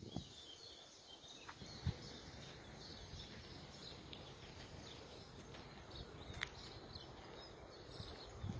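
Faint outdoor ambience with distant birds chirping, and a few soft knocks.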